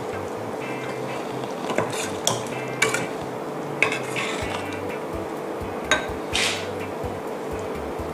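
Metal ladle stirring a thick coconut curry sauce in a stainless steel saucepan, clinking against the pot's side about six times at uneven intervals.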